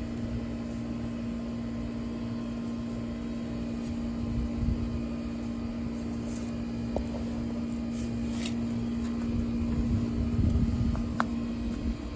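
Steady mechanical hum of a motor-driven machine, like a fan or air-conditioning unit, with a few low rumbles and light clicks and scrapes from digging in soft soil.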